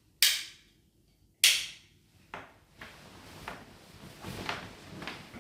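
Two sharp knocks about a second apart, then a string of softer clicks and rustling, as of things being handled and set down.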